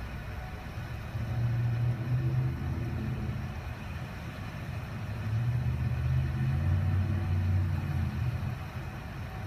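Vehicle engines running low in a flooded street, swelling twice, once about a second in and again from about five to eight seconds, over a steady hiss of rain and running floodwater.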